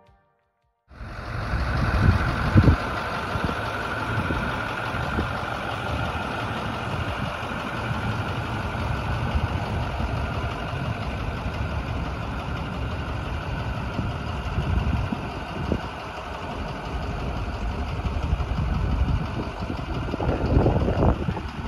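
The International TerraStar box truck's MaxxForce diesel, a V8, idling steadily. It comes in about a second in.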